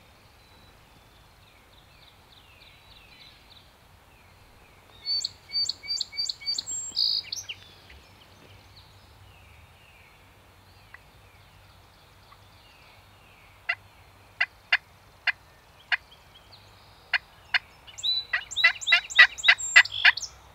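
Wild turkey calls: a quick run of about six sharp notes around five seconds in, then single sharp notes about a second apart, and a fast run of calls near the end.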